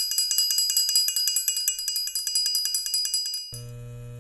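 Title sound effect: a rapid, high tinkling run of bell-like chimes, about eight strikes a second, that thins out and cuts off suddenly about three and a half seconds in. A steady electrical hum takes over.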